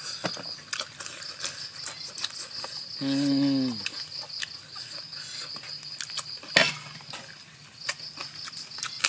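A steady, high insect drone with scattered crisp clicks of chewing. About three seconds in, a man hums a long closed-mouth "mmm" that falls in pitch at the end, a sound of relish at the food.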